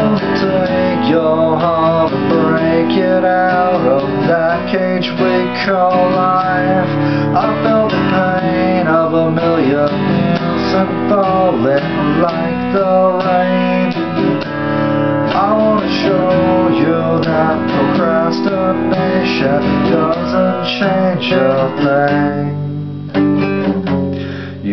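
Acoustic guitar picked and strummed in an instrumental passage with no singing. The playing dips briefly near the end.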